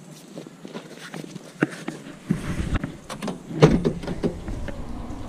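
Clicks and clunks of someone getting into a car, with a loud knock like a car door shutting about three and a half seconds in, over a low rumble that comes in a little after two seconds.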